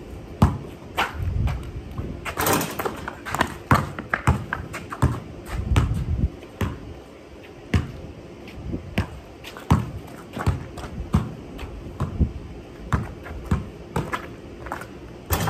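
Basketball being dribbled on a concrete driveway: a steady run of sharp bounces, about one every half second.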